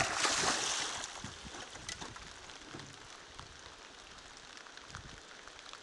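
A large piraíba catfish splashing at the surface: one loud splash at the start that dies away within about a second, then softer water noise with a few small splashes.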